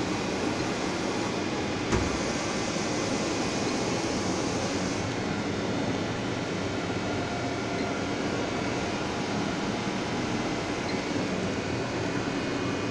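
CSLAB CNC lathe running with a steady machine noise, one sharp knock about two seconds in, and a higher hiss from then until about five seconds in.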